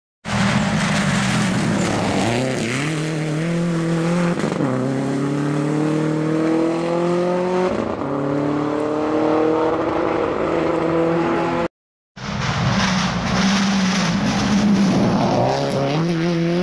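Rally car engine at full throttle on a gravel stage, its pitch climbing and dropping back at two upshifts. After a cut, a Subaru Impreza's flat-four rises and falls in pitch as the car slides through a turn.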